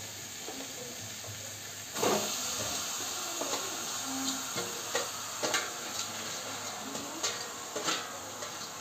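Frying sizzle in a hot iron kadai, swelling suddenly about two seconds in as boiled noodles are tipped in from a steel colander onto the fried masala. Several light metal clinks follow as the colander is shaken and tapped over the pan.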